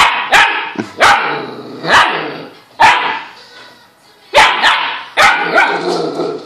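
Husky puppy barking, about eight sharp barks in an uneven series.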